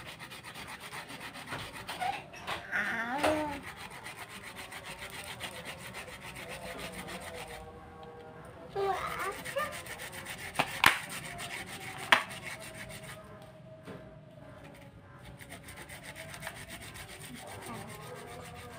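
Wooden pestle grinding garlic and shallots against a stone cobek mortar: a fast, even scraping rub. Two sharp knocks come a little past halfway.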